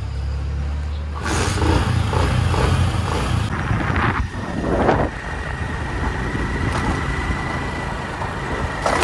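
Motorcycle engine idling with a steady low hum, then about a second in it gets louder as the bike pulls away and rides on. A thin steady high whine runs under it through the second half.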